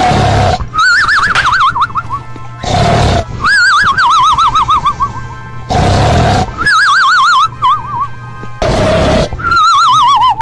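Snoring in repeated cycles about every three seconds. Each cycle is a short harsh snort on the in-breath, followed by a high whistle that wavers rapidly and falls in pitch on the out-breath.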